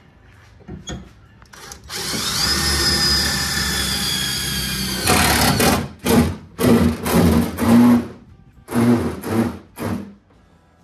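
Cordless drill working into the jon boat's aluminium frame. It runs continuously for about three seconds with a whine that rises as it spins up, then gives a string of about eight short trigger pulses.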